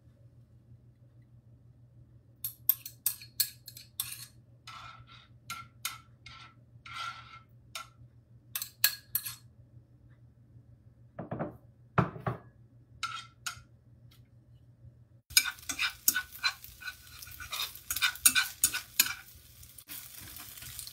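Utensil clicking and clinking against a bowl as eggs are beaten, with two short scrapes near the middle. About fifteen seconds in, a faint sizzle starts under fast stirring clatter in the pan as the eggs cook in hot oil.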